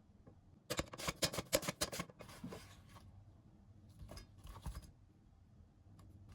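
Kitchen handling sounds: a quick run of sharp clicks lasting about a second, then softer rustling and a few more clicks.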